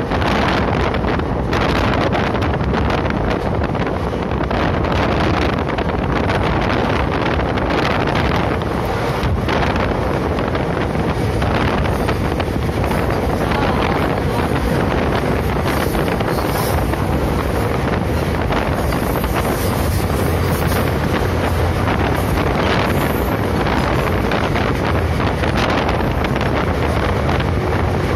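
Wind rushing over a phone's microphone on board a fast-moving passenger train, over the train's steady running rumble.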